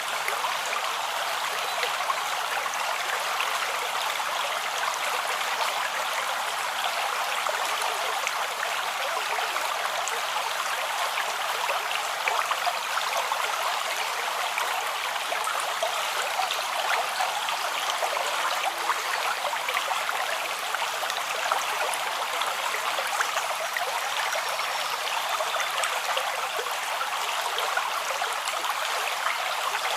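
A forest creek running: steady rushing and babbling water with small trickles and splashes throughout.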